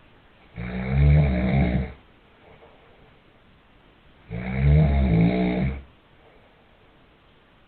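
A man snoring in his sleep: two long snores about three and a half seconds apart, each lasting about a second and a half.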